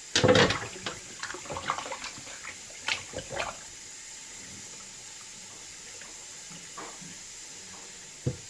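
Tap water running into a kitchen sink while raw chicken is rinsed, with loud splashing and knocks in the first three and a half seconds, then just the steady run of water, and one more knock near the end.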